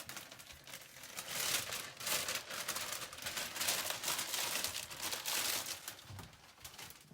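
Packaging around a compressed coconut coir block crinkling and rustling as it is handled and opened, a dense crackling that goes on for several seconds.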